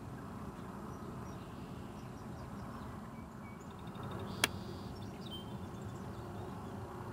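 Steady low outdoor background noise with a few faint high chirps, and one sharp click about four and a half seconds in.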